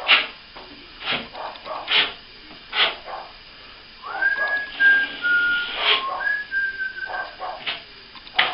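A person whistling a few held notes that step between pitches, starting about four seconds in. Before it come several short, sharp, noisy strokes, about one a second.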